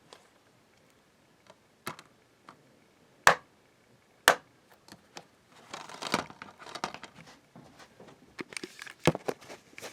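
Plastic DVD case and disc being handled: scattered sharp plastic clicks, two loud snaps about a second apart in the middle, then a couple of seconds of rattling and clicking, typical of prising a disc off the case's hub.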